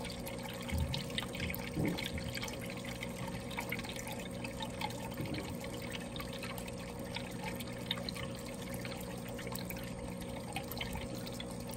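Water pouring from the air-driven jet lifter outlet of a corner matten (Hamburg matten) sponge filter and splashing onto the aquarium's surface. It is a steady trickle with small bubbly ticks, over a steady low hum.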